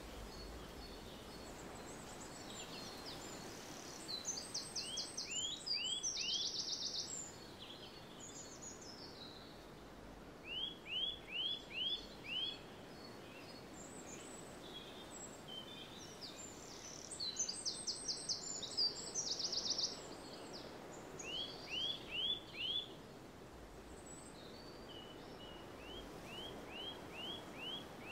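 Songbirds singing over a steady low background rumble. A high, rapid trill comes twice, and short phrases of four or five quick, repeated sweeping notes come several times.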